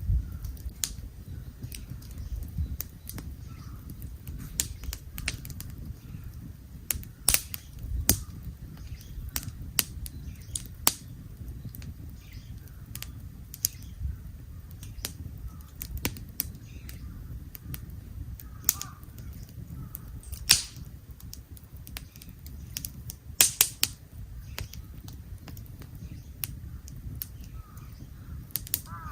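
Wood fire crackling, with irregular sharp pops and snaps of varying strength over a low steady rumble.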